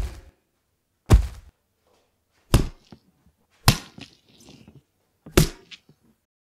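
Five heavy thumps about one to one and a half seconds apart, each dying away quickly, some followed by a few small clicks.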